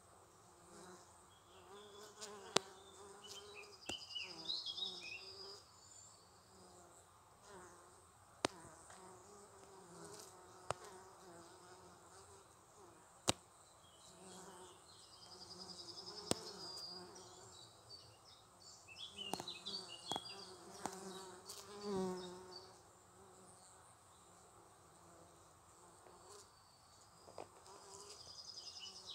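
Honey bees buzzing as they fly in and out of a log hive's entrance slit, the hum swelling and fading as single bees pass close by. A few sharp clicks are scattered through it, and birds chirp faintly behind.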